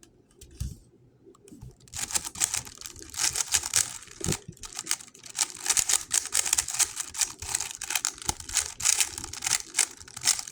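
GAN 11 M Pro speedcube being turned rapidly, a fast unbroken run of plastic layer clicks and clacks that starts about two seconds in.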